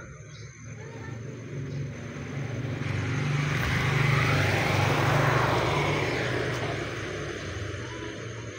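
A small motorcycle passing by: its engine sound swells to a peak about halfway through, then fades away.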